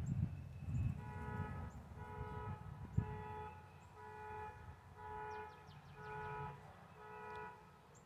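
A vehicle horn sounding a steady series of about seven short honks, roughly one a second, with the multi-note tone of a dual-tone car horn. Low traffic rumble fades during the first second, and a few faint bird chirps come in partway through.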